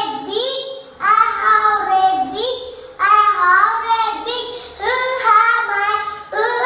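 A young girl singing solo, in short melodic phrases of about two seconds each.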